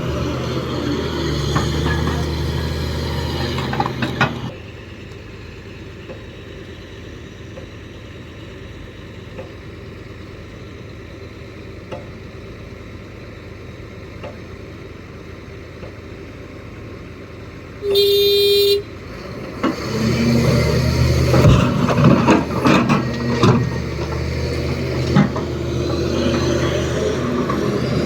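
Heavy machinery engines at an excavator loading site. The engines run loud for the first few seconds, then drop to a quieter steady rumble. About two-thirds through there is a single short horn toot, and then the engine noise rises again with several sharp knocks.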